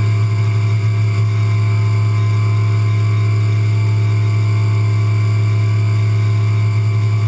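CNC milling machine running steadily while its spindle engraves a logo into the top of a part: a constant, unchanging hum with fainter higher tones above it.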